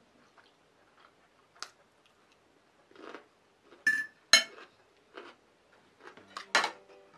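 Fork and wooden chopsticks clinking and scraping on a ceramic plate of ramen: a few separate clinks, the loudest a little past halfway, with soft eating sounds between.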